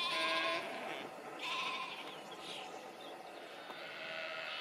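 Sheep bleating in a flock: a loud, wavering bleat right at the start, another about a second and a half in, and fainter bleats near the end.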